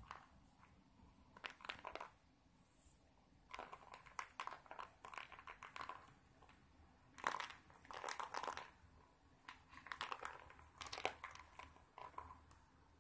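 Cat playing with a small furry toy mouse on a carpet: faint spells of rustling and scratching, a second or two each, as it bats, grabs and bites the toy.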